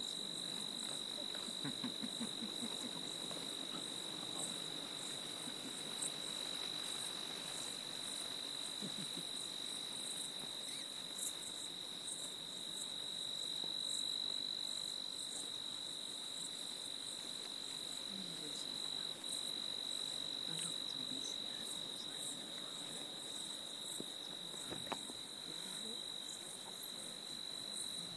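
Evening insect chorus: a steady, high, single-pitched trill that never lets up, with fainter rapid flickering chirps above it.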